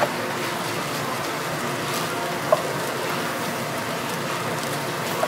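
Kitchen knife slicing through braised pig's trotter on a wooden cutting board, the blade knocking the board a few times, sharpest about halfway through, over a steady hiss of kitchen background noise.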